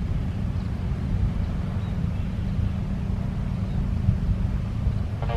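Steady low rumble of motorbikes and a car passing on a road.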